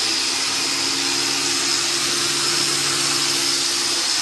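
A 125 mm angle grinder with a coarse plastic paint-stripping wheel runs steadily against a wooden boat hull, stripping the old paint, with its attached dust vacuum running. It makes a steady motor whine over the hiss of the vacuum, and the lower hum drops out briefly near the end.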